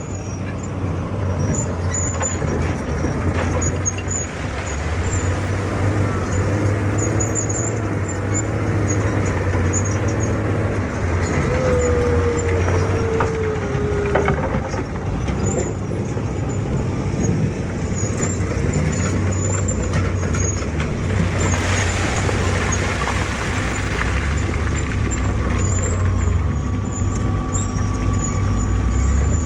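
Excavator's diesel engine running steadily under load, with scattered short high squeaks and a brief falling squeal about twelve seconds in.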